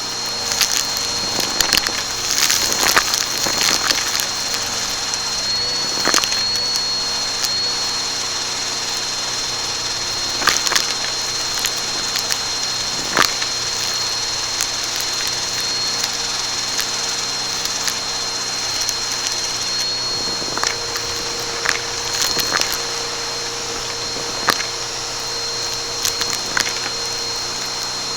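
Vacuum cleaner running steadily with a thin high whine, its brushroll crackling and snapping as it picks up crunchy debris from a rug, with a few sharper cracks scattered through.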